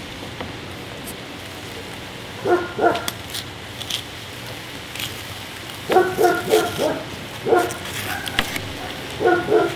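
A dog barking in short bouts of one to three barks, several times over a few seconds.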